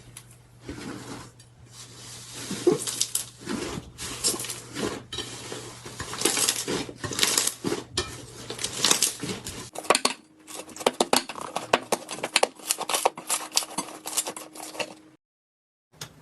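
Slime being squeezed and worked by hand, a run of crackling, clicking pops. The sound cuts to another clip about ten seconds in and drops out briefly near the end.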